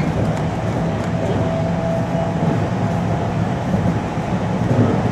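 Cabin noise inside the motor car of a 521 series electric train running between stations: a steady rumble of wheels on rail mixed with the hum of the traction motors, with a faint steady tone above it.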